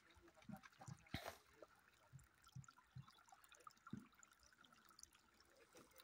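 Faint trickling and gurgling of water running from a hose into a water-filled pit of clay soil, with one sharp click about a second in.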